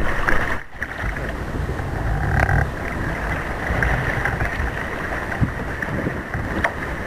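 Water sloshing and splashing around a kayak, picked up close to the waterline, with wind rumbling on the microphone and a few short sharp splashes.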